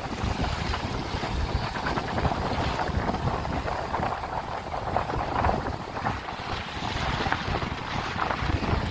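Wind buffeting the microphone, with a low rumble, over the hiss of small waves breaking and washing up the sand.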